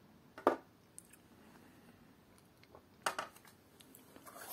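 Handling noise: a single sharp knock about half a second in, then a clatter and crackling rustle of shredded kraft-paper packing in a cardboard box from about three seconds in as a hand digs into it.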